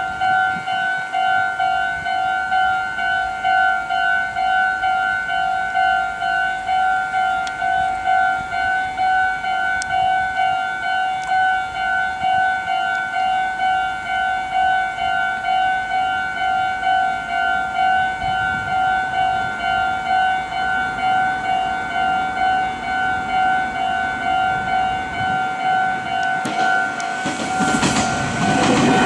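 Japanese railway level-crossing warning bell ringing steadily, a two-tone electronic ding repeating about twice a second. About 27 seconds in, an approaching train's rumble and wheel noise swell up and drown it out.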